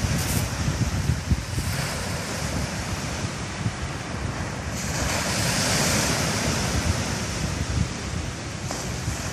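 Black Sea surf washing on the shore, a steady hiss of breaking water that swells up about five seconds in, with wind rumbling on the microphone.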